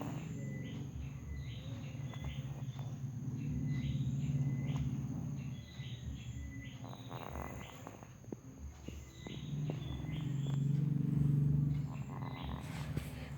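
Someone asleep snoring: two long, low rumbling breaths, the first a few seconds in and the second about ten seconds in. Under them runs a steady background of rhythmic high chirping.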